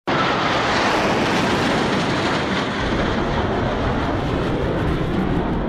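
F-16 fighter jet flying past in a display pass, its jet engine giving a loud, steady roar.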